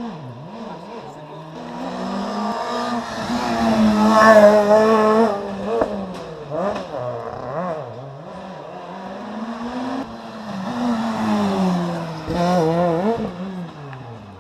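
Rally car engines at high revs passing at speed, the pitch climbing and dropping with gear changes and throttle lifts. It is loudest about four seconds in and again near the end.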